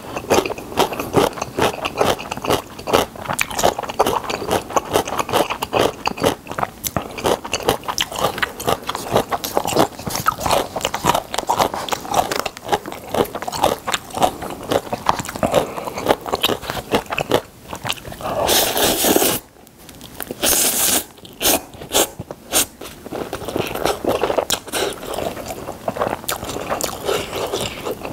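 Close-miked chewing of spicy stir-fried ramen noodles: a steady run of wet smacks and clicks of the mouth. Two loud slurps of noodles come a little past the middle.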